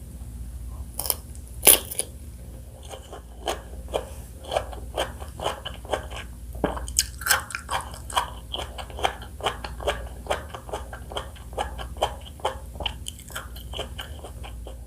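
Close-miked biting and chewing of fresh fruit: one loud bite about two seconds in, then wet, crunchy chewing at about two chews a second.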